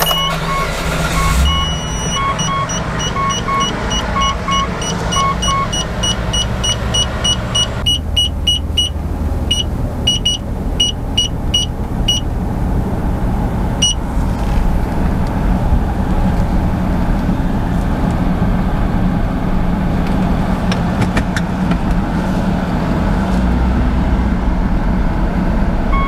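Mitsubishi Pajero V6 engine running steadily, with a run of short electronic beeps over the first twelve seconds or so that come faster about eight seconds in.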